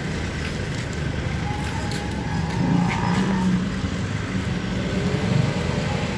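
City street traffic: motor vehicles running past, with an engine hum that swells in the middle. Near the end one engine rises in pitch as it accelerates.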